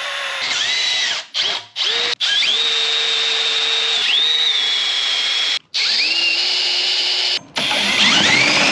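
Electric drill motor whining as it drills engine-mount holes in quarter-inch steel plate. It is run in several bursts, stopping briefly about a second in, twice near two seconds, and again near six and seven and a half seconds, with the whine rising in pitch each time it spins back up.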